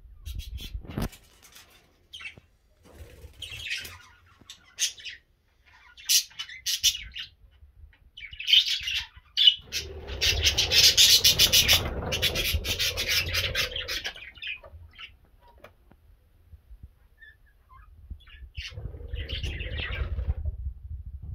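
Budgerigars chirping in short scattered calls, with a louder stretch of rapid chattering about halfway through.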